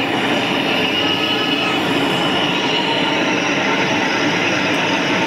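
Large gas burner under a brass pot of tea, running with a steady roar and a thin high whine.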